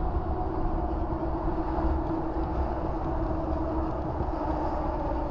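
Steady road and engine noise of a car at highway speed, heard inside the cabin as a continuous low rumble. A steady hum sits on top of it and fades about four seconds in.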